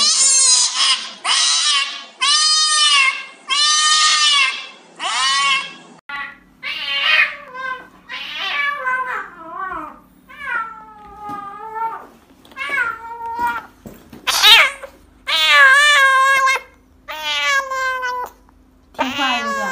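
Cats meowing and yowling in distress while being given injections. First come four long, loud yowls of about a second each, then a kitten gives many shorter meows that rise and fall in pitch.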